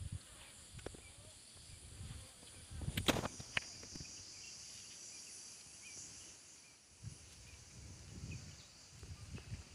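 A steady, high-pitched chorus of insects buzzing, with low irregular bumps on the microphone and a couple of sharp clicks about three seconds in.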